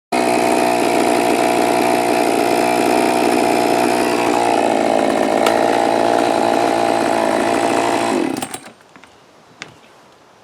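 Chainsaw running at full speed while carving into a basswood log, its pitch shifting slightly about four seconds in. It cuts off abruptly a little over eight seconds in, leaving quiet background with a single sharp click.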